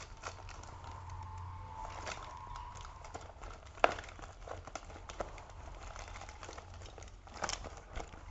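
Rummaging through small items by hand: crinkling of plastic with scattered light clicks and knocks, and one sharper knock about four seconds in, over a steady low hum.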